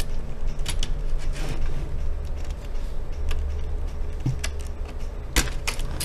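Plastic case clips of an Acer Aspire E15 laptop popping loose as a small flathead screwdriver pries along the seam: scattered light clicks and scrapes, with a sharper pop about five seconds in.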